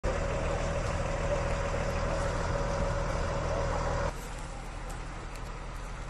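Forestry fire truck's engine running steadily, with a steady whine over its low hum. It drops to a quieter rumble about four seconds in.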